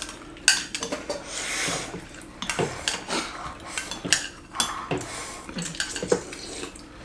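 Chopsticks and spoons clinking and tapping against small bowls and an electric hotpot pan as several people eat, in many short, irregular clicks. There is a brief rush of noise about a second and a half in.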